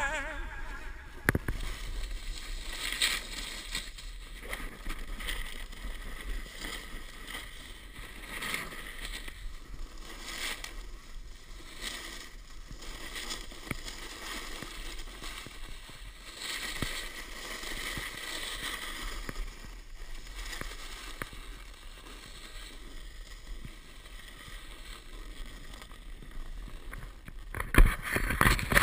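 A snowboard sliding and scraping over packed snow, with wind rushing over the camera's microphone. It rises and falls through the run and gets much louder near the end as the board throws up a spray of snow.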